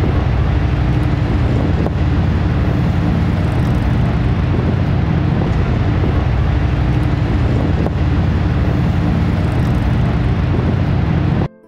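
Horseshoe Falls at Niagara: the loud, steady rush of a huge volume of falling water, deepest in the low end, cutting off abruptly near the end.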